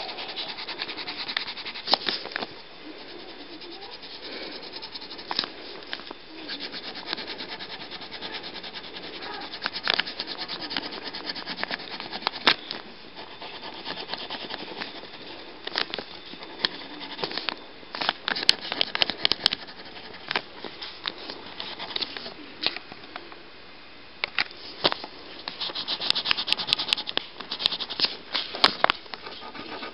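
A pen scribbling and rubbing on a paper picture, a continuous scratchy scraping broken by many irregular sharp clicks.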